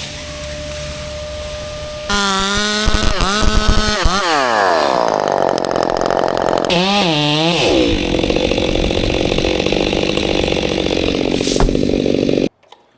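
Gas chainsaw running and revving, its pitch dropping and climbing several times, then holding at a steady high speed before cutting off abruptly near the end. It is preceded by about two seconds of a steady lower hum.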